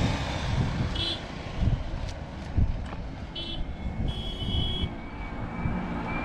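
A motorcycle passes on the road, its engine fading away, leaving an uneven low rumble of wind and road noise. A few short high chirps come about a second in and again past three seconds.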